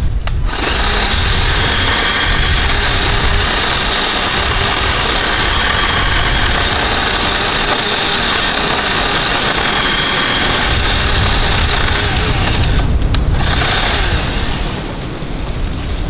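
Cordless electric chainsaw running under load as it makes the back cut of a felling cut in a dead oak, a steady whine. It stops briefly near the end, runs again for a moment, then cuts out. Wind rumbles on the microphone underneath.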